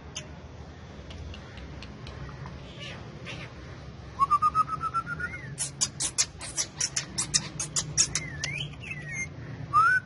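Indian ringneck parrot whistling and chattering. About four seconds in comes a quick rising whistle, then a fast run of sharp clicking notes with a few up-and-down whistled glides, which stops about a second before the end.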